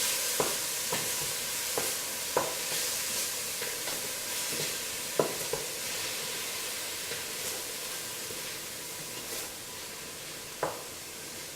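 Mushrooms with a garlic, ginger and onion mix sizzling in oil in a pan on lowered heat, stirred with a utensil that knocks against the pan about six times. The sizzle slowly quiets.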